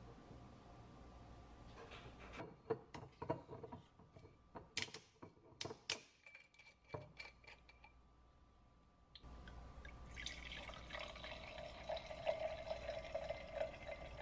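A string of light clicks and knocks as the bottle and glass are handled, then, from about nine seconds in, Riesling white wine poured from the bottle into a large stemmed wine glass with a steady splashing trickle.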